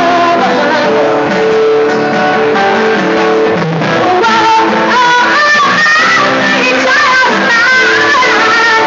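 Acoustic guitar playing, with a voice singing over it; a wavering melody line comes in higher up about halfway through.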